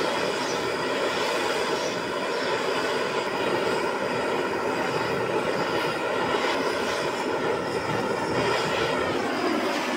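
Steady machine noise, a motor's whir with a rush of air over it, holding unchanged and then cutting off suddenly at the end.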